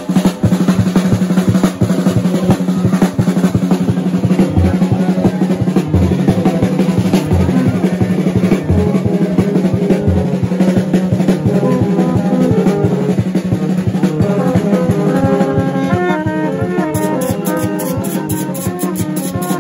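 Gagá (rara) band playing: fast, dense drumming and sticks clattering on a metal tube over a steady low drone from vaksen tube trumpets, with tin horns blowing. About two-thirds of the way in, a melody of stepped higher notes joins.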